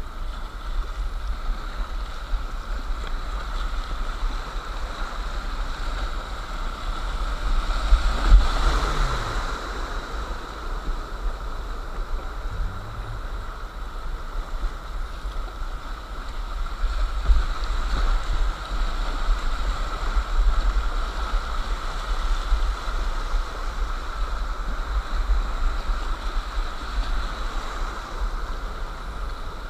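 Whitewater river rushing over rocks and around a kayak, a steady wash of water noise with a low rumble on the microphone; the water swells louder for a moment about eight seconds in.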